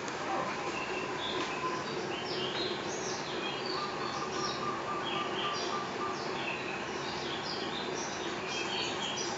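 Many small birds chirping in quick, irregular, sliding calls over a steady low hum and whoosh, which is likely the running Kawa ceiling fan.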